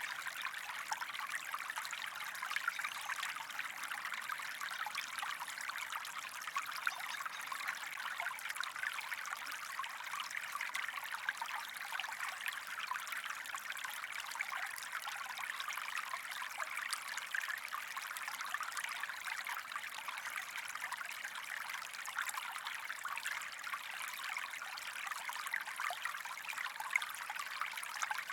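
Small stream running steadily: a continuous rush of water with many fine little splashes.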